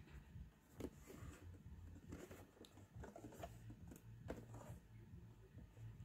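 Faint handling noise of an Xprinter label printer's plastic casing being turned over in the hands: a few soft rubs and light knocks.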